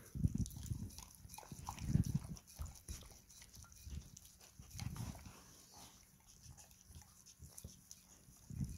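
Border collies licking and lapping at a glass plate, wet tongue strokes against the glass in irregular bursts, loudest about two seconds in.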